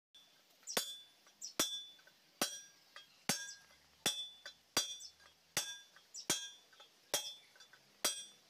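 Hammer blows on a steel drift, about ten sharp ringing metal-on-metal strikes at an even pace of roughly one every 0.8 s. The drift is driving a sleeve into the front of a Mahindra pickup's front axle housing tube.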